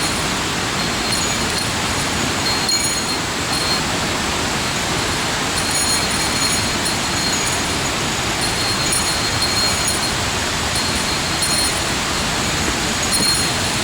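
Steady rushing of water in a mountain gorge, loud and even throughout.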